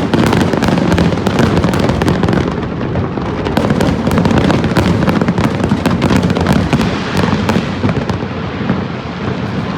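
Fireworks display in full barrage: many bangs and crackles overlapping rapidly over a continuous low rumble.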